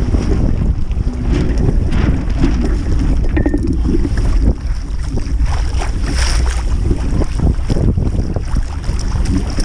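Wind buffeting the microphone on a Topper Topaz sailing dinghy under way, a steady low rumble, with water rushing and splashing against the hull.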